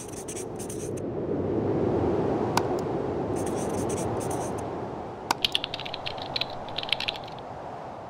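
A felt-tip marker scratching in quick strokes as it writes, in bursts at the start, in the middle and through the second half. Under it is a steady rushing noise that swells and then fades.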